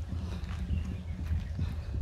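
Footsteps walking on a path, a loose series of short knocks over a steady low rumble on the microphone.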